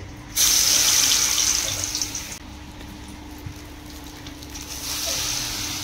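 A besan-battered egg piece dropped into hot oil in a wok: a sudden loud sizzle about a third of a second in, fading after about two seconds into steadier, quieter frying, then swelling again near the end.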